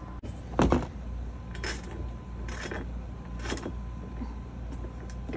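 A knock about half a second in, then short metallic clicking strokes about once a second: a ratchet wrench tightening the nuts and bolts that fasten a cargo box to an ATV's rear rack.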